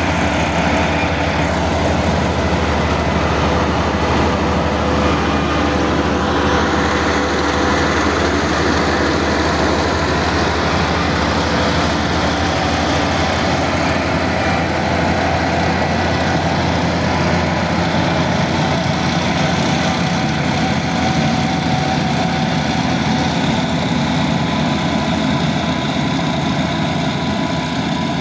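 Kubota KAR90 crawler combine harvester running steadily under load as it cuts the crop, a constant engine drone with machinery whir.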